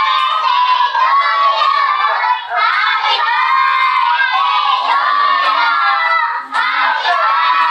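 A crowd of children's voices singing and shouting together, loud and continuous, with some notes held for about a second at a time.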